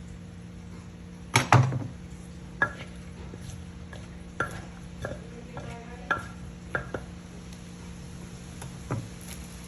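Scattered, irregular knocks and clinks of kitchen utensils during som tam preparation, some with a short ringing tone. The loudest are two heavy knocks about a second and a half in.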